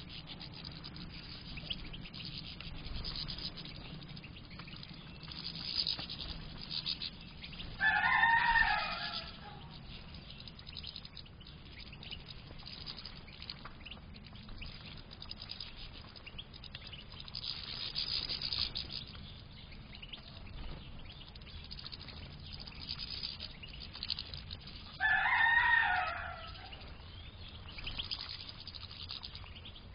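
A rooster crowing twice, about 17 seconds apart. Faint high chirping and rustling of caged European goldfinches feeding on seed runs underneath.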